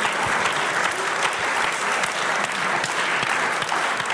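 Audience applauding, dense clapping at a steady level.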